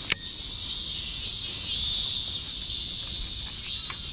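Steady, high-pitched chorus of summer insects buzzing without a break, with a sharp click just after the start.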